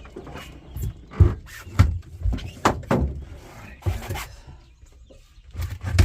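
Freshly caught striped bass flopping, its body and tail slapping against a hard surface in an irregular run of sharp thumps and slaps.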